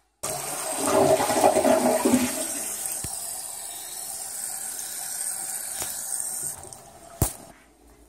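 Water rushing through bathroom plumbing: loud at first, then tapering off over several seconds, followed by a single sharp click near the end.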